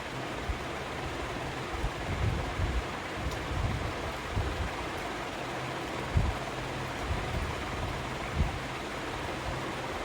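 Close-miked chewing of food: irregular soft low thuds over a steady hiss, with a couple of sharper bites.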